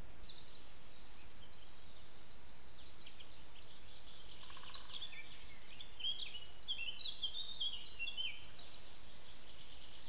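Wild songbirds singing: rapid high chirps throughout, thickening in the second half into a run of short falling notes, over a steady hiss.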